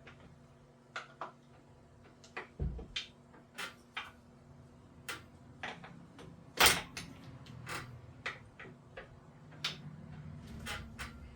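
Irregular sharp clicks and knocks of small metal parts and tools being handled while fitting a speed sensor into a transfer case, with one louder knock about two-thirds of the way through and a dull thump near the start.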